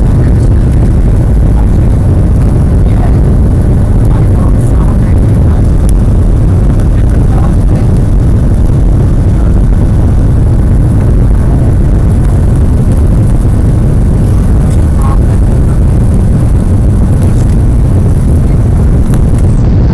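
Boeing 737-800's CFM56-7B turbofan engines at high power, heard from inside the cabin over the wing during the takeoff roll: a loud, steady rumble with a heavy low end.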